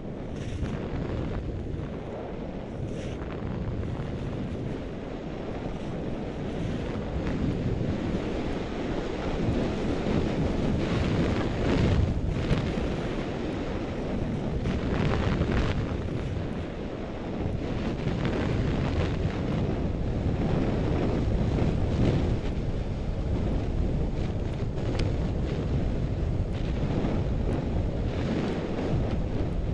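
Wind rushing and buffeting over the microphone of a goggle-strap-mounted Contour GPS action camera while skiing downhill, with skis hissing and scraping over groomed snow. The rush grows louder over the first several seconds as speed builds.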